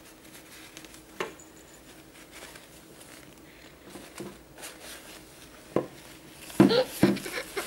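Soft rustling and light taps of a doll's diaper being put on and fastened, with a couple of sharp clicks. Near the end come a few short, loud whimpering sounds.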